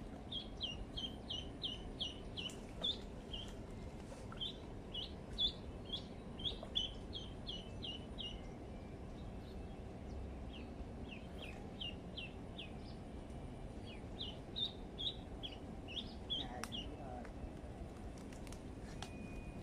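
A duckling tethered as live bait on a fishing line, peeping: high, falling peeps in quick runs of about three a second, with short pauses between runs.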